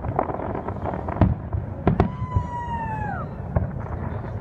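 Fireworks salute: distant shell bursts booming and cracking irregularly, several a second at times, over a steady crackle. About two seconds in, a whistle slides down in pitch for about a second and breaks off.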